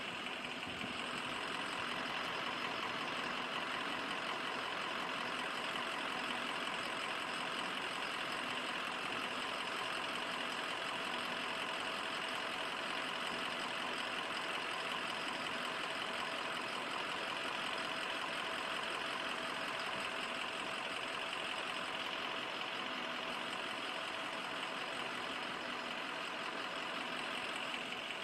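A fire engine's engine idling steadily, without change.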